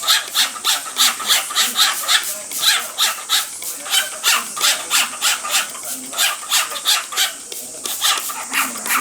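Male cockatiel making a fast rhythmic run of short, hissy chattering calls, about three or four a second, as if imitating the sound of water.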